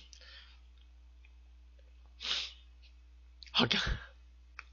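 A man's short breathy bursts of laughter, twice: a small one about two seconds in and a louder one near the end with a low bump on the microphone.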